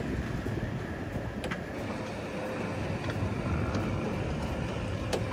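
Steady low rumble of wind and choppy water around a small open fishing boat, with a faint steady hum and a few light knocks.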